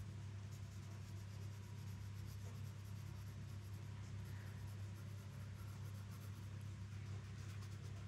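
Graphite pencil sketching on paper: many short, light scratching strokes, over a steady low hum.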